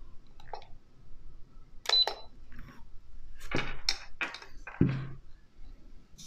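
A string of sharp clicks and knocks from a trigger-pull gauge being worked against the cocked single-action trigger of a Swedish M1887 Nagant revolver, with a short electronic beep about two seconds in. The gauge is measuring the trigger pull, which comes out at a heavy 5 kg or so.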